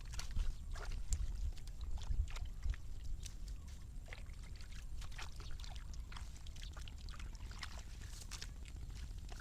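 Irregular small splashes and sloshing of water over a steady low rumble.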